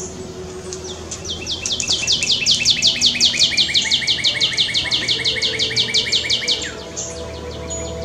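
Male northern cardinal singing: a fast series of sharp down-slurred whistles, about six or seven a second, for about five seconds, ending with one longer falling note.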